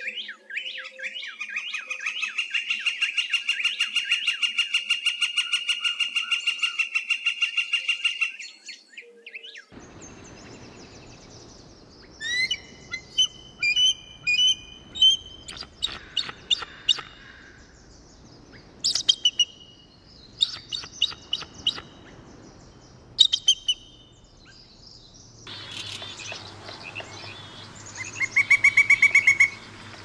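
Northern flicker's long call: a fast, even run of loud notes that goes on for about eight seconds. Then a bald eagle's high, thin chittering calls come in short scattered groups. Near the end a pileated woodpecker gives a quick series of calls.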